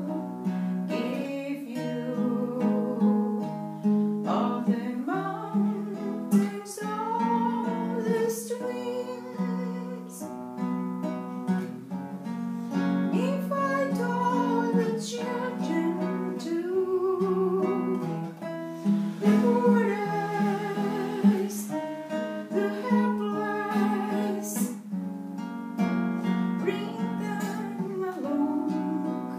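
A woman singing to her own accompaniment on a nylon-string classical guitar.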